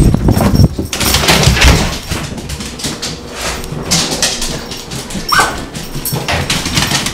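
Two dogs greeting and playing on a tiled floor: scuffling and clicking, with one short high-pitched whine about five seconds in.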